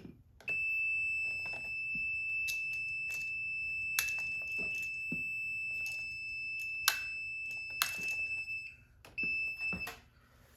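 Non-contact voltage tester sounding a steady high-pitched tone for about eight seconds, breaking off and sounding again briefly near the end: it is picking up voltage on the wires being checked. Light clicks and rustles of wires being handled sound alongside.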